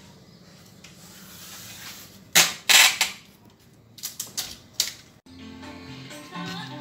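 Packing tape pulled off the roll in two loud strips, followed by a few sharp taps and clicks. Background music comes in a little over five seconds in.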